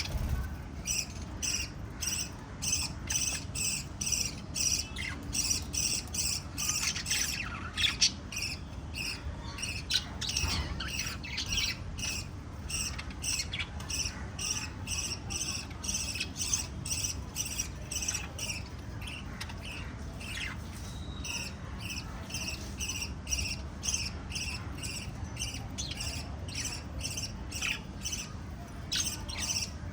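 Small pet parrots chirping and squawking in short, irregular calls, over a steady, even train of high chirps about two a second, like a cricket.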